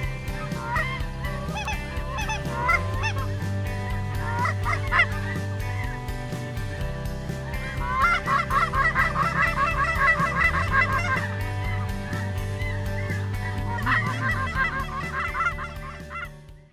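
Geese honking as a flock comes in. Scattered calls thicken into a dense chorus about eight seconds in and again near the end, over a steady low hum. The sound cuts off abruptly just before the end.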